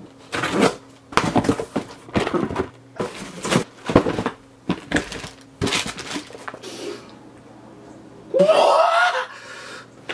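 A knife slicing packing tape and a cardboard box and shoebox being torn open and handled: a string of short ripping and scraping rustles over the first seven seconds. About eight seconds in comes one loud, drawn-out voiced breath from a person sniffing a new sneaker.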